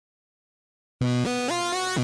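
Silence, then about a second in an electronic music track starts abruptly with a synth line stepping up in pitch note by note.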